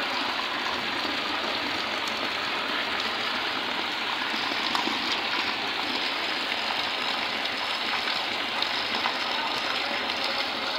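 Heavy rain pouring steadily onto a waterlogged yard, a dense, even hiss of drops splashing into standing water.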